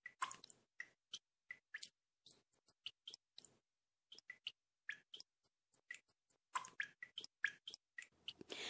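Faint, irregular sharp clicks, two or three a second, with silence between them.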